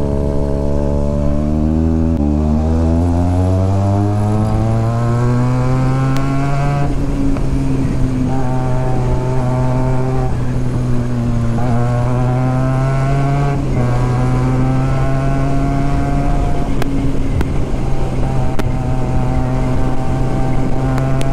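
Benelli TNT 300 parallel-twin motorcycle with a loud exhaust, accelerating with its pitch climbing and dropping at upshifts about two and seven seconds in, then cruising at a nearly steady pitch with brief dips.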